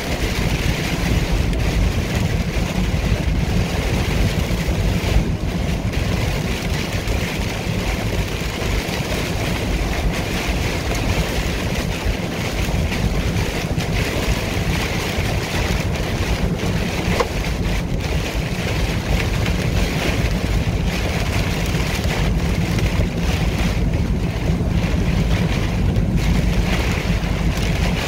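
Steady rain and road noise heard inside a car's cabin while driving through a heavy storm: rain striking the windshield and roof, and tyres hissing on wet pavement.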